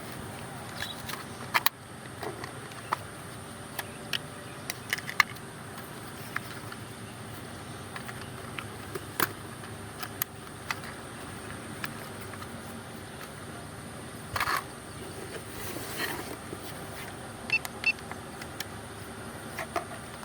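Drone box and packaging being handled during unboxing: scattered light clicks and taps over a steady background hiss, with a brief scuffle about fourteen seconds in.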